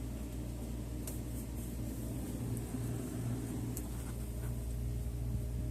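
Whirlpool Gold refrigerator running, its compressor giving a steady low hum, with a few faint ticks.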